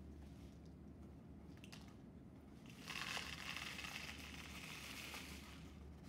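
Bird seed poured from a bent plate into a milk-carton bird feeder: a rustling hiss of seeds sliding in, starting about three seconds in and lasting a couple of seconds.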